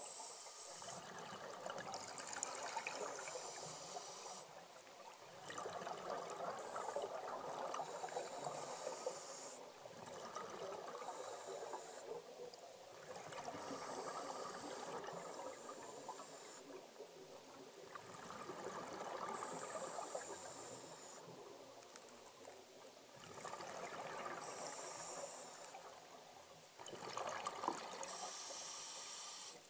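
Scuba breathing through a regulator underwater: a hiss on each breath in and a rush of bubbling on each breath out, repeating about every four to five seconds.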